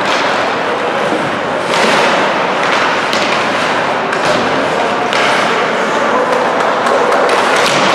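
Ice hockey rink noise during a game: a steady din of skates and voices, broken by several sharp thuds and cracks, typical of pucks and players hitting the boards.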